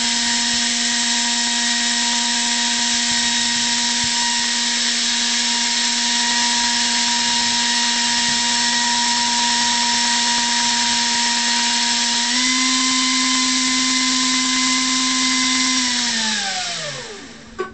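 Himaxx 96 mm electric ducted fan running at high power: a loud rush of air with a steady whine. About twelve seconds in the pitch steps up slightly, then near the end the fan spools down with a falling whine and stops, followed by a single sharp click.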